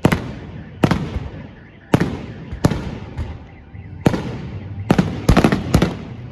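Aerial fireworks shells bursting overhead: about nine sharp bangs in six seconds, each followed by a rolling, echoing rumble, with several bursts coming in quick succession near the end.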